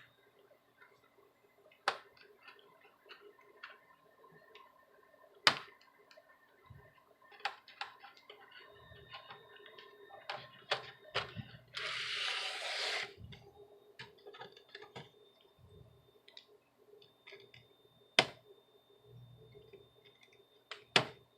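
Scattered light clicks and taps of hands working on a laptop's plastic case and connectors while a cable is being unplugged, with a few sharper clicks and a brief rustle about midway.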